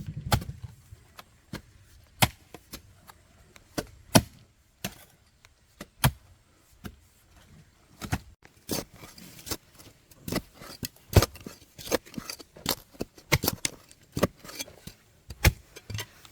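Repeated chopping blows of a hand tool striking wood. They are spaced about a second apart at first and quicken to several strikes a second in the second half.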